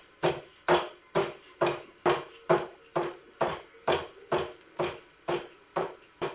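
Hands clapping in a steady rhythm, about two claps a second.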